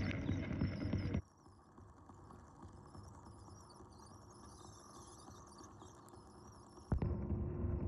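Muffled low rumble of an aqua treadmill's belt and churning water, recorded underwater. It cuts off abruptly about a second in to a much fainter hiss, then comes back just as suddenly after a sharp click near the end.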